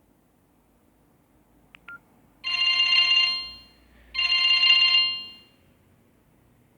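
Samsung GT-E1200i mobile phone playing a ringtone through its small speaker: two bright ringing bursts of about a second each, each fading at its end. A brief double beep comes just before them.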